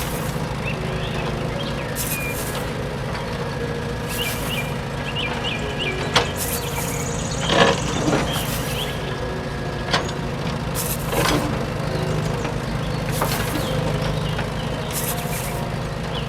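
A vehicle engine runs steadily with a low hum. Short hissing bursts come about every two seconds, with a few sharp knocks between them.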